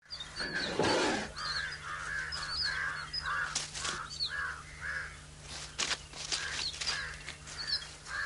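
Birds calling: a run of short calls repeating a few times a second, with higher chirps over them, some sharp clicks, and a steady low hum underneath.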